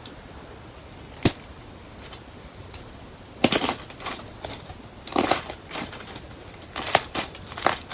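Hard candle-wax slime being pressed and broken by hand: one sharp snap about a second in, then several bursts of crunching and crackling as the wax pieces break up.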